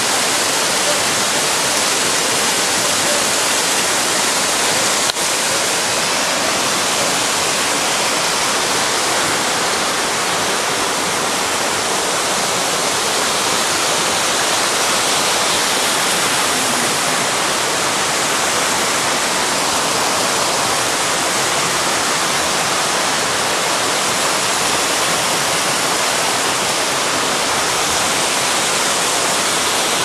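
Mountain waterfall cascading over rocks in a narrow gorge: a loud, steady rush of falling water, with a single brief click about five seconds in.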